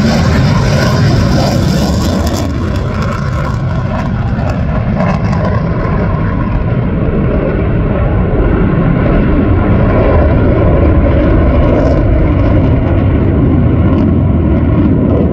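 Lockheed Martin F-22 Raptor's twin jet engines rumbling loudly as it flies past and climbs away. The high hiss drops out a couple of seconds in while the deep rumble carries on.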